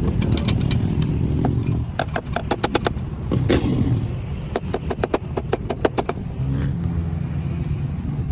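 Quick runs of sharp metallic clicks from tyre irons working a punctured dirt-bike rear tyre off its rim, over a steady low rumble of motorcycles running.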